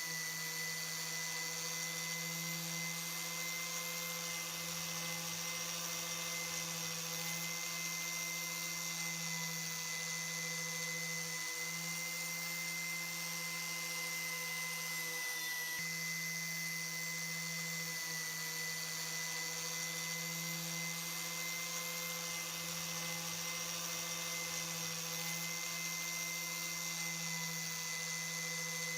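A small electric power tool running steadily at constant speed, giving an even, high-pitched whine.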